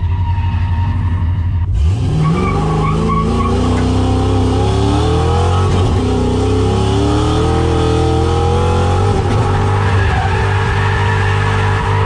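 SN95 Ford Mustang drift car's engine, heard from inside the stripped cabin: a steady low running note, then from about two seconds in it revs up, its pitch climbing over several seconds and holding high near the end, with a hiss of tyre noise under it.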